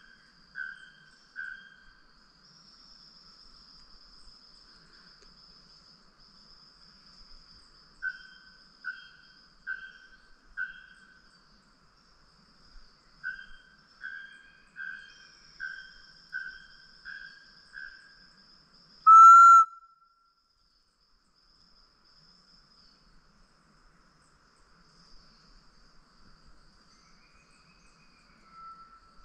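Short whistled notes repeated about once a second in several runs, over a faint steady high insect buzz. About two-thirds of the way through comes one much louder, short whistle, pitched a little lower.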